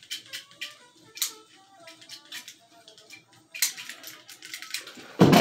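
Background music with a melody of short notes and many sharp clicks, and a loud thump near the end.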